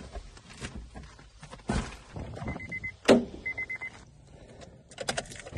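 A car's warning chime beeps in two quick runs amid rustling and handling noise. A sharp thump comes about three seconds in, and a few clicks near the end.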